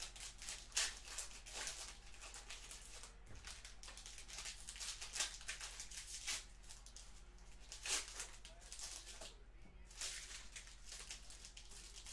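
Trading card packs being opened by hand: wrappers crinkling and tearing, with cards sliding and flicking between the fingers in short, irregular bursts.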